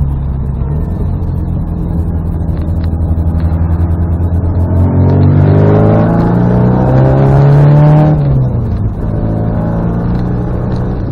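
Austin-Healey Frogeye Sprite's 1275 A-series four-cylinder engine running on the road. From about four seconds in it pulls harder, its note climbing and growing louder. Just after eight seconds in the note drops sharply and settles back to a steady, lower run.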